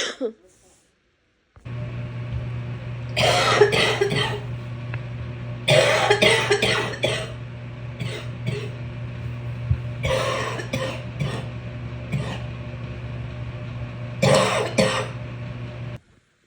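A person's wet, chesty cough, in four fits of several coughs each, with a few single coughs between them.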